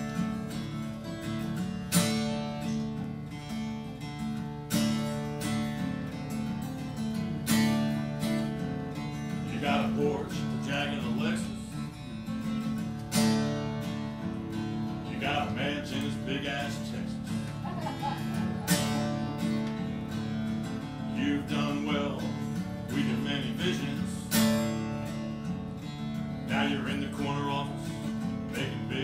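Acoustic guitar playing a blues tune, strummed, with a strong accent about every two and a half to three seconds and wavering higher notes at times.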